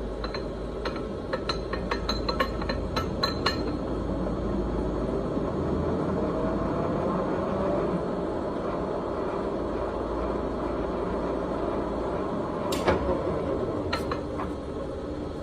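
Poreba TPK90 engine lathe running under power, a steady machine hum with a pitch that glides upward in the middle. A quick run of metallic clicks in the first few seconds, and a loud clack followed by a few more clicks near the end, as the low hum drops away.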